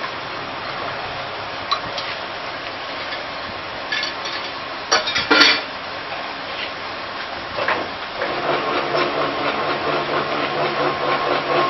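Roll forming machine working a steel strip: a few sharp metallic clanks around the middle, then from about 8 s a steady machine hum as the formed strip runs out through the forming rolls.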